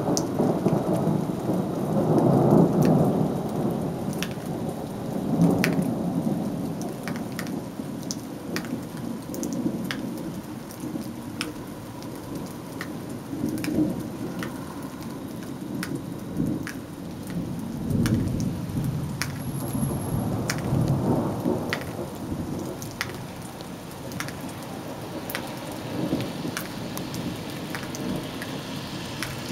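Thunder rolling in long rumbling swells over steady rain, loudest in the first few seconds and swelling again past the middle, with scattered sharp ticks throughout.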